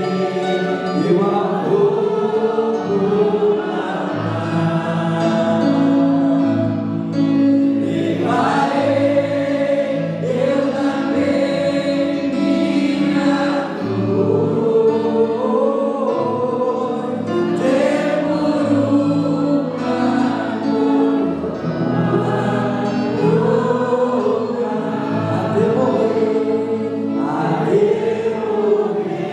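Gospel worship song in Portuguese, sung by two women and a man together, with electric guitar accompaniment.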